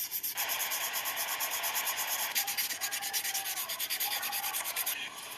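Sanding on a car's bodywork under repair: a steady scratching rub in fast, even strokes.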